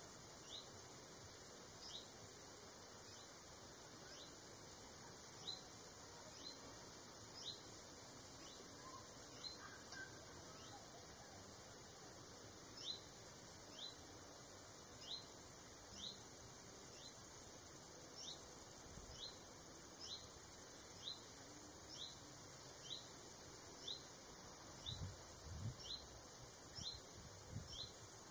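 Crickets in a summer meadow, chirping steadily: a continuous high-pitched shrill with a shorter rising chirp repeating about one and a half times a second.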